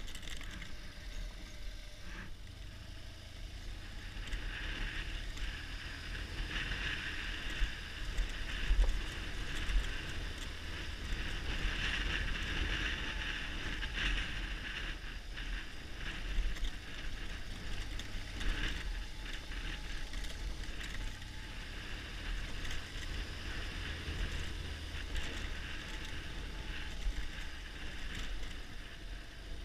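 BMW R1200GS Adventure ridden along a stony dirt track: low rumble of its flat-twin engine under wind noise on the microphone. A few sharp knocks from stones and bumps stand out, the loudest about nine seconds in.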